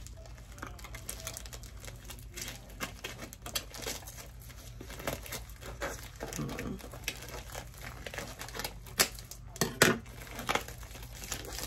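Priority mail packaging crinkling and rustling as it is handled, pulled at and cut to get it open, with irregular crackles and a couple of louder sharp crackles near the end.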